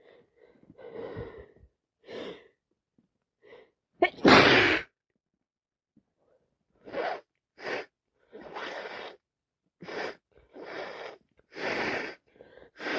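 A person sneezing: a few short breaths, then one sudden, loud sneeze about four seconds in. After a short pause comes a run of short, noisy breaths through the nose, typical of a head cold.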